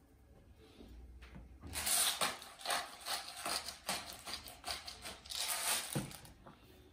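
Handheld bottle spice grinder twisted over a steak, giving a run of rapid gritty crunching clicks for about four seconds as the peppercorns or salt crystals are cracked, then a dull thud as the bottle is set down on the counter.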